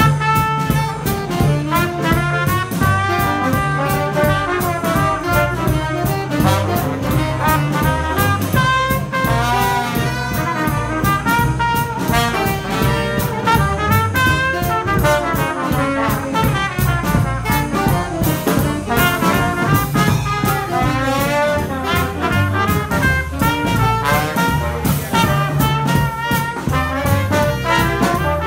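Small jazz band playing live: trombone and other horns carrying the tune over a steady beat and bass line.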